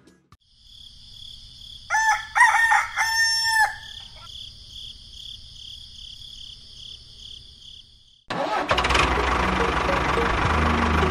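A rooster crows once, about two seconds in, over a faint steady high-pitched background. About eight seconds in, a tractor engine sound starts abruptly and keeps running loudly.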